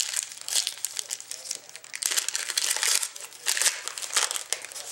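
The shiny wrapper of a Zenith hockey card pack being torn open and peeled back by hand, crinkling in a dense, irregular run of rustles.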